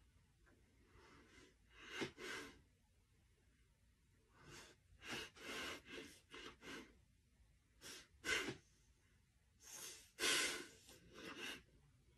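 A dog sniffing and snuffling at close range against a person's face. Its short, noisy sniffs come in quick clusters of two to four, separated by brief pauses.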